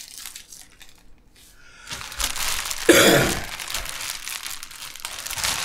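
Clear plastic bag crinkling as it is handled and pulled at where it is taped shut. It is quieter at first, then becomes dense rustling about two seconds in, with a louder rasp about three seconds in.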